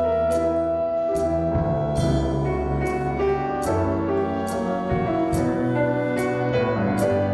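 Instrumental music: held chords over a sustained bass line, with a light, crisp click marking a slow steady beat a little more than once a second.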